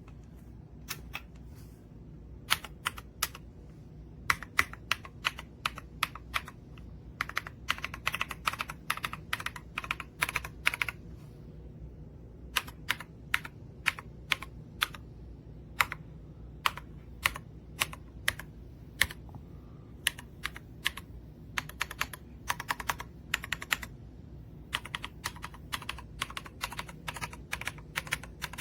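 Mechanical keyboard with EPOMAKER Creamy Jade 45gf linear switches being typed on: irregular keystrokes, with faster runs about a third of the way in and again near the end, and a short lull between them.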